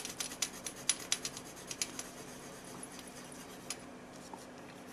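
A 10% warm grey colored pencil scratching over a colored patch on paper in quick short strokes, blending the layer beneath: a rapid run of small scratchy clicks that thins out after about two seconds, with a single click near the end.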